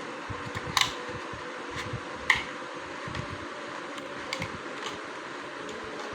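Sharp small clicks and taps from handling a laptop's parts, two louder ones about a second and two and a half seconds in and a few fainter ones later, over a steady hiss.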